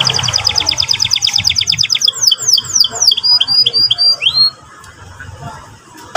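Canary singing: a fast, even trill for about two seconds, then a run of slower, sweeping notes that stops about four and a half seconds in.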